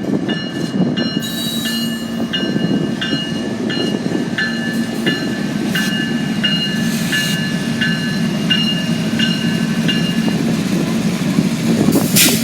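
Freight train rolling slowly past with a steady rumble of railcars on the rails. Over it a bell rings about twice a second and stops shortly before a brief hiss near the end.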